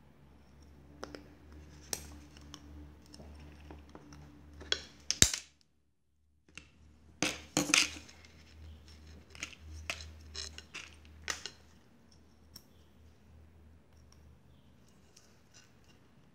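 Light clicks, taps and clinks of a brushless drone motor, carbon-fibre arm and small screws being handled and fitted together by hand, with the sharpest knocks about five seconds in and again around seven to eight seconds in.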